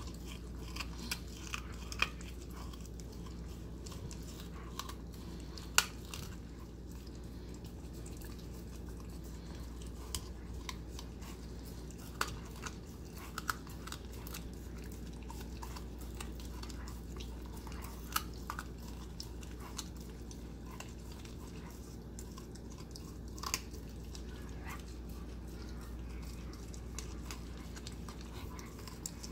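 Husky puppy chewing a raw chicken neck, with irregular sharp crunches and cracks of bone and gristle between her teeth.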